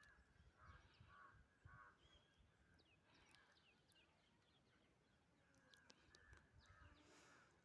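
Faint birds calling over near silence: scattered short chirps and a few repeated calls.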